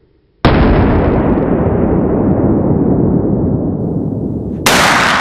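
Two shots from a CVA Accura LR-X .50 caliber muzzleloader rifle. The first comes about half a second in, muffled with no highs, and booms on for about four seconds as it slowly fades. The second, near the end, is sharp and bright and rings out as it fades.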